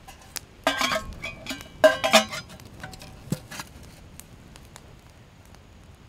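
Metal char container for cattail tinder being handled: clinks and scrapes of metal on metal with brief ringing, in a burst about a second in and another about two seconds in, then a few lighter taps.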